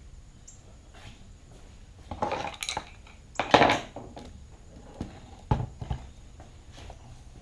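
Clattering and scraping as the plastic housing of an electric string trimmer is handled and worked on with hand tools during disassembly. There are two short scraping rattles a couple of seconds in, the second louder, followed by a few sharp clicks.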